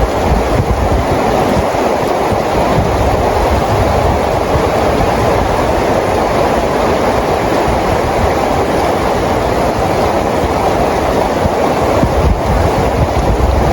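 Steady rain falling: a dense, even hiss with an uneven low rumble beneath it.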